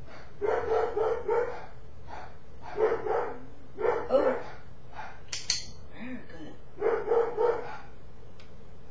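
A dog barking in short runs of two or three barks. About halfway through, a sharp double click, typical of a training clicker being pressed and released.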